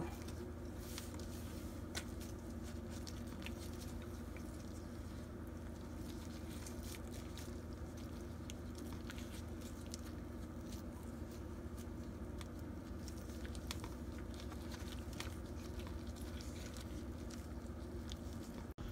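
Faint soft squishing and light clicks of gloved fingers peeling the charred, steam-loosened skin off roasted Anaheim chiles, over a steady low hum.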